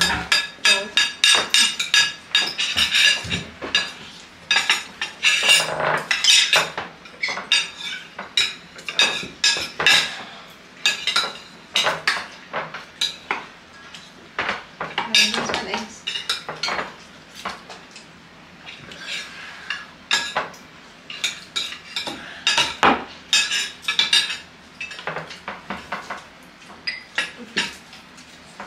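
Metal forks and spoons clinking and scraping against plates as two children eat, in many quick, irregular clicks with a short lull a little past the middle.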